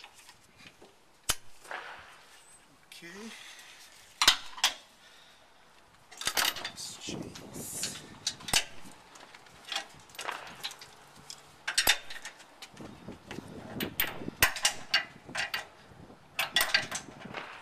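Irregular metallic clinks and clanks of hand work on a steel ProPride trailer hitch: a wrench on its fittings and the safety chains being handled and hooked up, with short rattling stretches between the sharper knocks.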